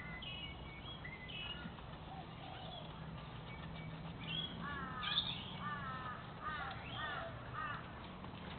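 Staffordshire bull terrier puppies yipping while play-fighting, with a run of short, high yips in the second half.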